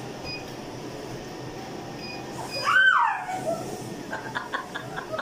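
A woman's sharp cry of pain, rising then falling in pitch, about two and a half seconds in, during a laser hair-removal pulse on her arm. Short high beeps from the Cynosure Elite laser machine come before it over a steady machine hum, and a few quick short sounds follow.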